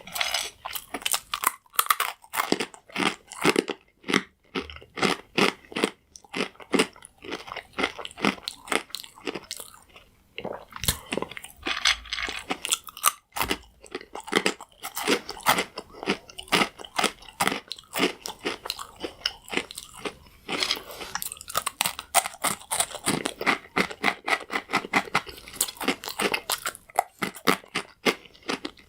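Crunchy croutons being chewed close to the microphone: rapid, repeated loud crunches, about two or three a second, with a brief pause about ten seconds in.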